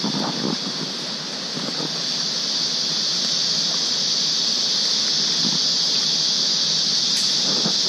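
Steady high-pitched drone of a forest insect chorus. Footsteps and leaves rustling come through underneath, most in the first couple of seconds.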